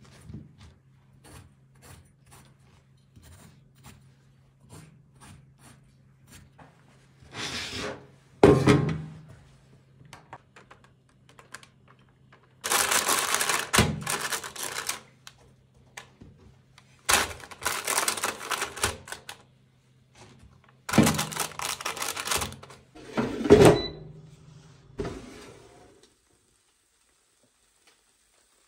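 A chef's knife scoring eggplant halves on a wooden cutting board, giving light regular taps. Then, from about a third of the way in, crinkling of a parchment liner and thunks as the pieces are laid into a plastic air fryer basket, over a low steady hum.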